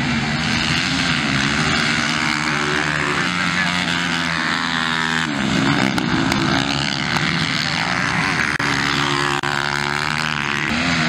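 Several motocross motorcycle engines revving up and down as the bikes race around a dirt track, their pitch rising and falling through the turns.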